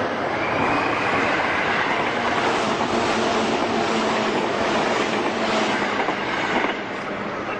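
Train running through the station, a steady loud rushing rumble with a faint high squeal in the first couple of seconds, easing off near the end.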